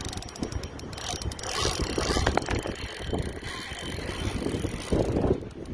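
Spinning reel clicking and whirring as a hooked fish is fought, over wind rumbling on the phone's microphone.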